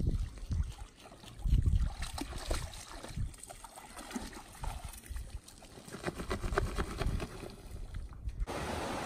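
A dog splashing as it wades in shallow lake water at the shore, with gusts of wind on the microphone. About eight and a half seconds in, the sound cuts suddenly to a steady rush of flowing water.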